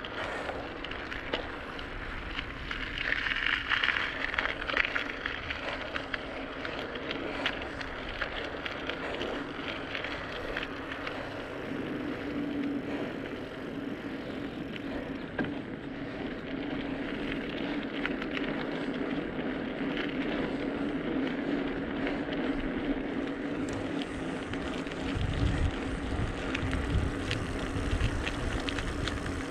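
Wind rushing over the microphone and tyre noise from a two-wheeler rolling slowly on pavement. A steady low hum joins about twelve seconds in, and heavier wind buffeting comes near the end.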